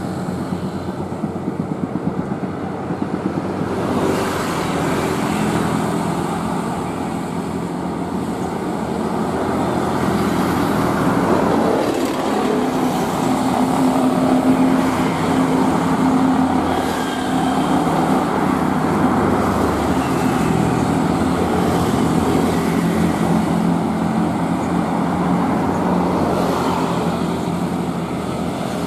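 Busy road traffic: cars, motorcycles and trucks passing with engines running, loudest about halfway through as a vehicle goes by close.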